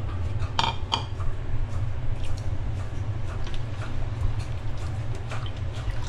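A ladle stirring thick soup in a stainless steel stockpot: a couple of sharp clinks about half a second to a second in, then faint scattered knocks and scrapes against the pot, over a steady low hum.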